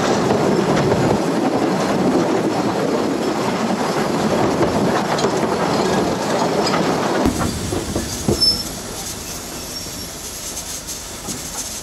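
A 750 mm narrow-gauge steam train running, heard from one of its carriages: steady, loud rumble and rattle of the wheels and coaches on the track. About seven seconds in the sound changes abruptly to a quieter scene with a few knocks.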